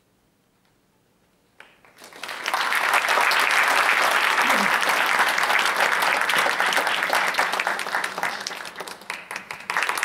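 Near silence for the first second and a half, then audience applause that builds quickly about two seconds in and holds steady. It dips briefly near the end and swells again.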